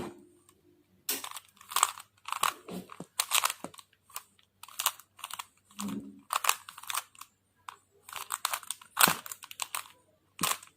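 A 3x3 speed cube being turned by hand to apply a scramble: quick runs of plastic clicking and clacking turns, broken by short pauses between moves.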